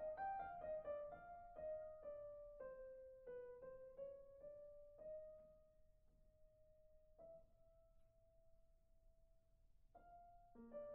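Soft solo piano music: single notes step downward and slow to one long held note, then new notes come in near the end.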